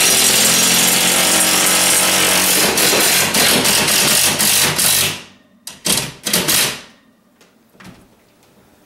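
Cordless impact driver hammering a lag bolt with a washer through a TV wall bracket into a wooden stud. It makes a loud, continuous rattle for about five seconds, stops, then gives two short bursts about a second later.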